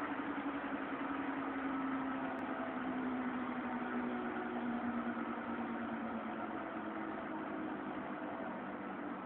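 A steady engine-like hum, its pitch drifting slowly.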